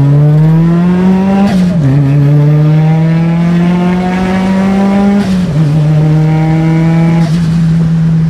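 Ford Laser KE TX3's turbocharged four-cylinder engine, heard from inside the cabin, pulling hard with the revs climbing. The pitch drops at upshifts about 1.5 s and 5 s in, and the note holds steady near the end.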